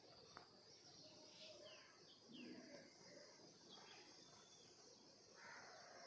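Near silence: faint outdoor ambience with a steady high hiss and a few short, falling bird chirps about two seconds in.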